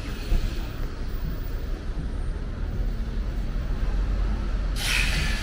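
Road traffic on a busy street: a steady low rumble of vehicles, with a louder rushing noise that comes in suddenly near the end.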